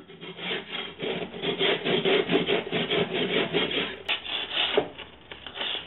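Serrated metal tool scraped rapidly back and forth across a block of clay: a rasping, sawing sound of quick, even strokes, several a second.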